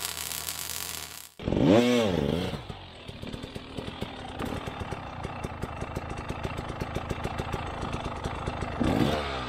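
Husqvarna TE300i two-stroke dirt bike engine blipped once, its pitch rising and falling, then idling with an even rapid putter, and blipped again near the end. Before it, a steady hum cuts off just over a second in.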